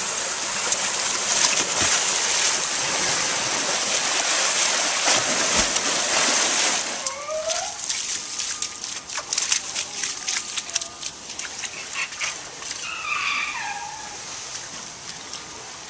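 Water rushing and splashing for about seven seconds, then cutting off. Scattered clicks and drips follow, with a few short squeaky calls.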